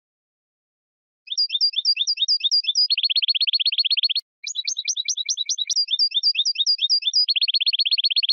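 European goldfinch singing. After about a second of silence come two long song phrases with a brief break between them. Each phrase is a run of quick repeated two-note chirps that ends in a fast, even trill.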